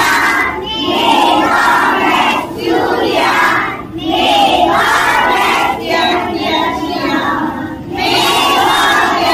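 A class of young schoolchildren singing and chanting together in chorus, in short phrases with brief pauses between them.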